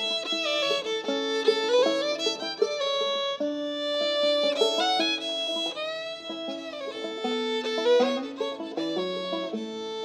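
Old-time fiddle playing a traditional Ozark tune, often bowing two notes at once, with some notes sliding into pitch.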